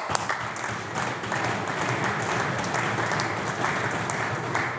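Applause from a group of seated legislators clapping their hands.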